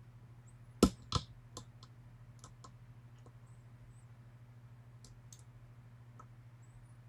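Lock pick and tension wrench clicking in a Yale 500 Plus five-pin lock with spool pins as it is picked: two sharp clicks about a second in, then scattered faint ticks.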